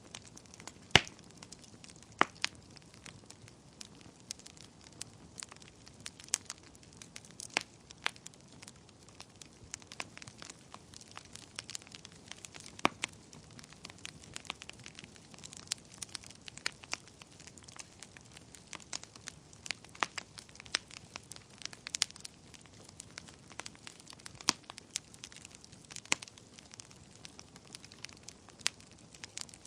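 Wood fire burning in a fireplace: irregular crackles and sharp pops over a faint steady hiss, the loudest pop about a second in.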